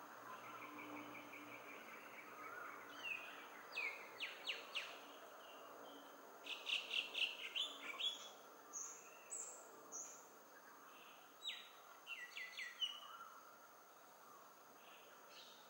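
Small birds calling: clusters of short, sharp chirps that sweep down in pitch, about four seconds in, around seven seconds in and again near twelve seconds, over a steady faint hiss.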